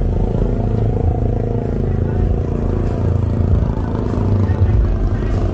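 Street traffic: motorcycle and car engines running, a steady low rumble.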